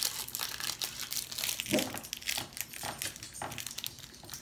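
A crinkly candy wrapper being twisted open by hand, a continuous fine crackling, with a brief low sound about two seconds in.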